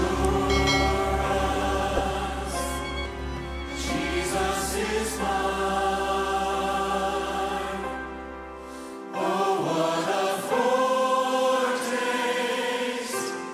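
Christian worship music: a choir singing long held notes over instruments, with a low bass underneath that drops out about nine seconds in.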